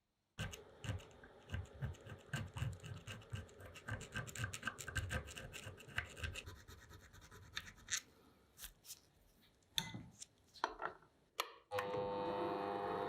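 Rapid, irregular scratching and scraping strokes, thinning out after about six seconds. Near the end a steady electric hum starts.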